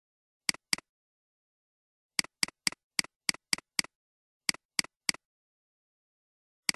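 Sharp computer input clicks over dead silence, each a quick double tick like a button being pressed and released. Two come about half a second in, then a run of seven at about four a second, three more, and a last one near the end.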